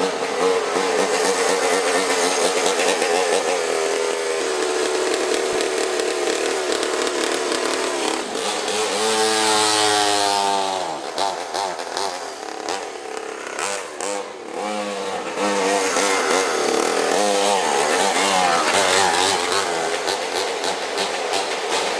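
Pocket bike's small engine running at high revs, its pitch wavering. About nine seconds in, the engine note sweeps down in pitch as if passing by, then eases off for a few seconds before picking up again.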